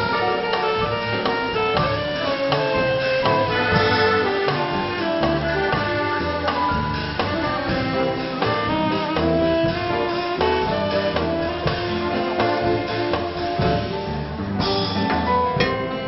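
Live dance band playing vintage dance music, with saxophone among the instruments.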